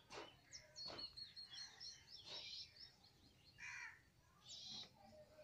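Faint birds chirping and calling in the background, in short scattered chirps, with two light clicks near the start and about a second in.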